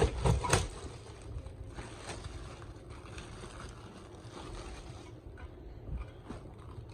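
Plastic wrapping being pulled off a ceiling fan, rustling and crinkling, after a few loud handling knocks in the first second.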